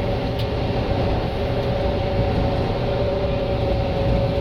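John Deere 9500 combine running steadily while threshing soybeans, heard inside the cab: a low engine rumble under a constant whine from the threshing cylinder. The cylinder is working under load, pulled down slightly below its set speed by the faster ground speed.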